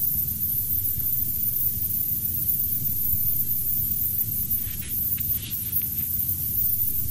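Steady hiss and low hum from the recording, with no other clear sound; a few faint, brief noises about five seconds in.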